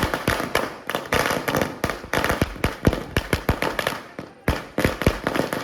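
Fireworks firecrackers going off in a rapid, dense barrage of sharp bangs, several a second. The barrage thins briefly about four seconds in, then picks up again.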